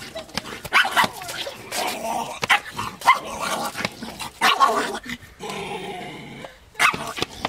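Small black puppy barking in short, sharp bursts, several in a row, with growling between the barks.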